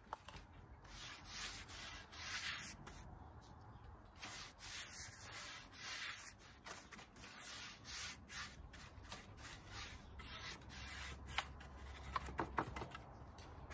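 A paintbrush stroked back and forth along rough pallet-wood planks, brushing on wood oil: a run of scratchy brush strokes, roughly one or two a second, with a few sharp ticks near the end.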